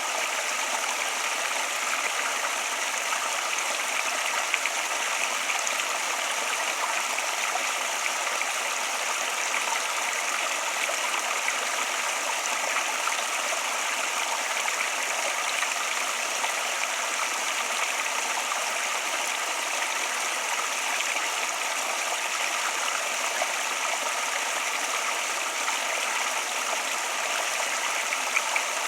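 Flowing water running steadily, an even, unbroken rush with no pauses.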